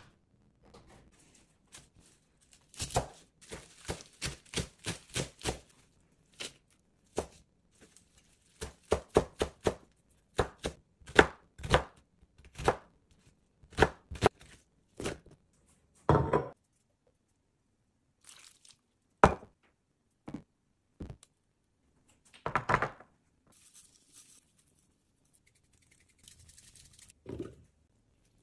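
Kitchen knife chopping on a wooden cutting board: irregular runs of sharp knocks with pauses between.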